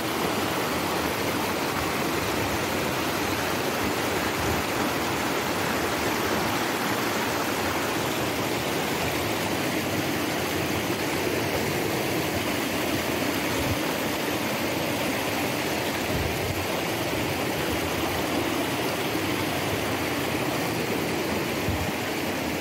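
Steady rush of a mountain river's fast-flowing water, an even continuous noise that holds the same level throughout.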